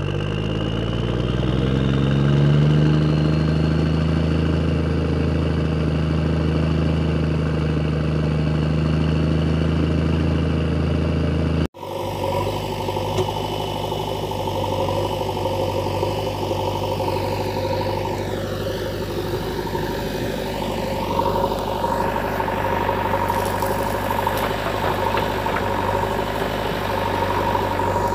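Recorded engine sound effect laid over the footage: an engine revs up over the first few seconds and settles into a steady run, then about twelve seconds in it cuts off abruptly to a different engine running steadily.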